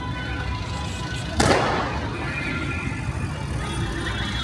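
Busy city street traffic, with a sudden loud burst of noise about a second and a half in that dies away over half a second. A few steady high tones join in after about two seconds.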